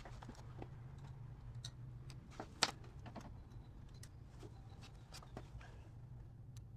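Scattered light clicks and taps of small metal parts and tools being handled, with one sharper click about two and a half seconds in, over a steady low hum.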